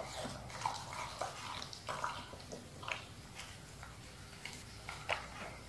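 Siberian husky eating watermelon flesh out of a half rind: irregular wet smacks of licking and chewing, a few each second.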